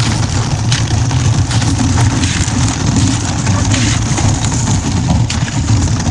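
Sea kayak hull pushing through thin skim ice: a steady low grinding rumble, with a sharp crack or crunch now and then as the ice breaks.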